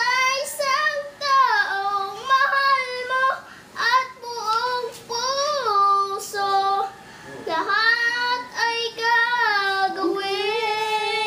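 A young boy singing a song alone, without accompaniment, in a clear high voice, ending on a long held note.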